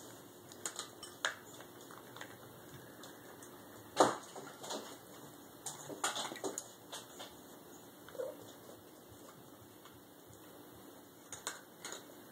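Siamese cat eating kibble softened in a ceramic bowl of water: scattered sharp clicks and clinks at the bowl, the loudest about four seconds in, a cluster around six seconds and a couple more near the end.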